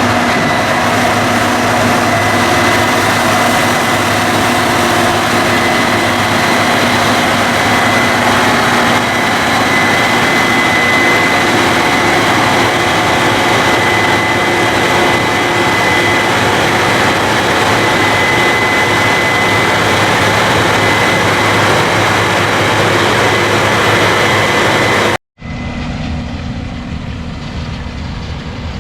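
Case IH 8250 combine running loudly and steadily while harvesting wheat: a constant machine noise with a high, steady whine over it. About 25 seconds in, the sound breaks off for an instant and comes back quieter and duller.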